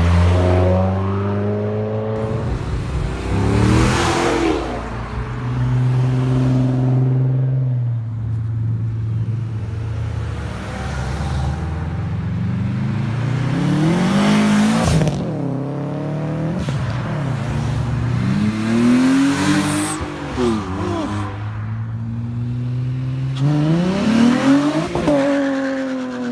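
A series of cars driving off one after another, their engines revving up hard and then falling away as each passes, about four or five runs in all.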